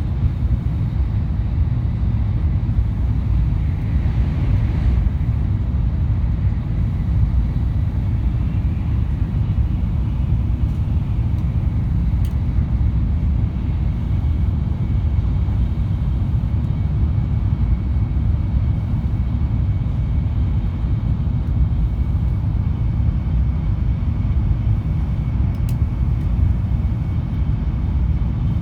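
Shinkansen bullet train running at speed, heard from inside the carriage as a steady low rumble.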